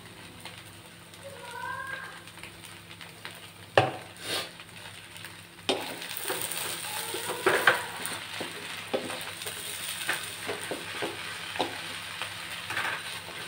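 Rice stir-frying in a wok: a steady sizzle with a wooden spatula scraping and tapping against the pan. There is a sharp knock about four seconds in, and the sizzle gets louder from about six seconds in.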